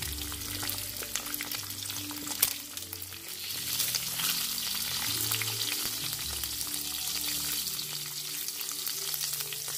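Eggs and onion rings frying in olive oil in a nonstick skillet, sizzling steadily while a spatula scrapes and slides under them. There is a sharp click about two and a half seconds in, and the sizzle gets louder from about three and a half seconds on.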